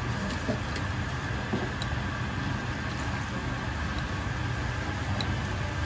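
Steady, even roar of commercial ramen-kitchen equipment, with a low hum underneath and a few faint clicks of chopsticks against a ceramic bowl as mazesoba noodles are mixed.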